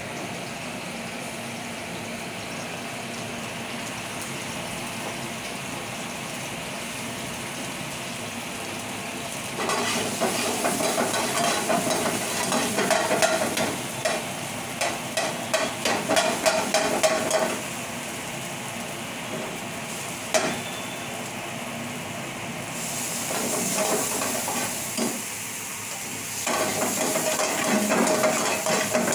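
Stir-frying in an iron frying pan: a steady hiss at first, then about ten seconds in loud sizzling of chopped aromatics in hot oil, with a steel ladle scraping and clinking against the pan. After a quieter stretch the frying and ladle clatter pick up again near the end as chopped tomatoes are tossed in the pan.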